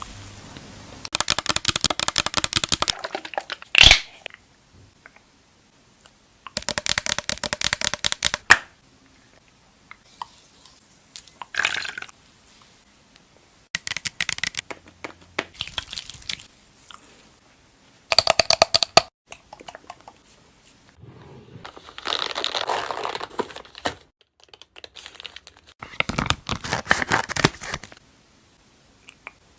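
Makeup products being handled close to the microphone: about eight bursts of rapid crackling and tapping, each a second or two long, with short quiet gaps between.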